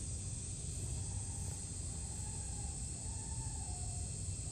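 Steady high insect drone over a constant low rumble, with no distinct eating sounds standing out.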